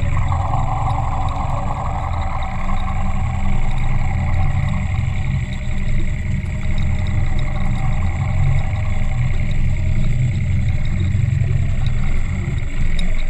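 A steady low engine drone, muffled as heard by a camera underwater. It drops away suddenly at the very end.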